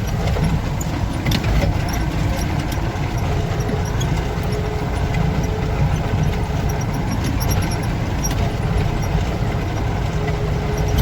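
Off-road vehicle engine running steadily, a continuous low rumble with a faint steady tone in the middle.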